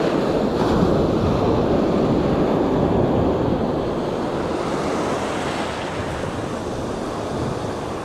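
Gulf surf breaking and washing up the beach, a steady rushing noise, with wind on the microphone.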